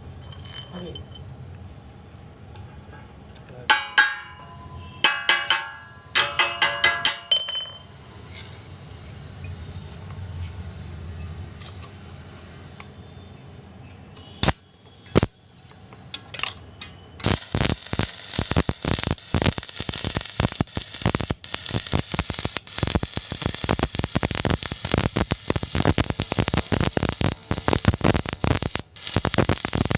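Several ringing clinks of steel being struck, then two sharp snaps. From a little past halfway a stick-welding arc crackles and sputters steadily as a bead is run on galvanized steel pipe.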